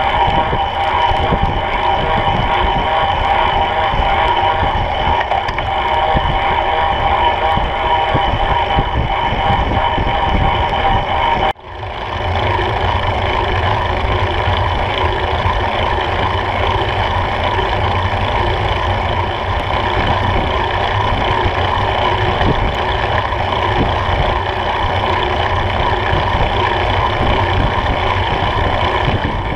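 Wind and rolling noise of a Brompton folding bicycle riding fast on wet tarmac, heard through a camera mounted on the bike, with a steady hum. The sound drops out sharply about eleven and a half seconds in and comes back within a second.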